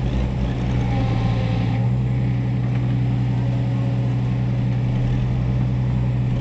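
Heavy-equipment diesel engine running steadily at a constant speed, with no revving.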